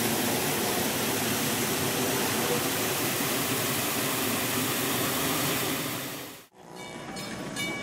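Water from a tiered brick fountain's jets splashing into its basin, a steady dense rushing noise; it fades out about six and a half seconds in, leaving a quieter background with faint steady tones.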